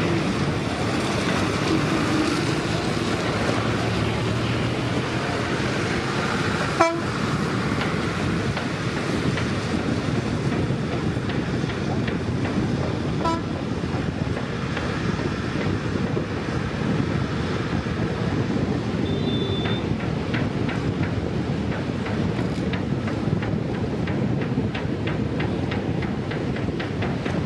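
Passenger train running along the track at a distance, a steady wash of rolling noise mixed with wind, with a couple of short horn toots.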